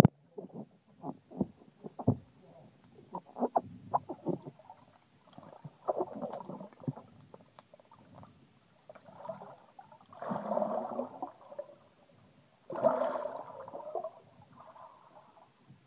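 Muffled water sounds heard through a phone held underwater in a swimming pool: a run of small knocks and clicks, then longer gurgling bursts about ten and thirteen seconds in.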